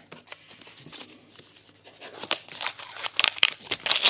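Packaging crinkling as it is unwrapped by hand close to the microphone: a few faint ticks at first, then a dense run of crinkles from a bit past halfway, loudest near the end.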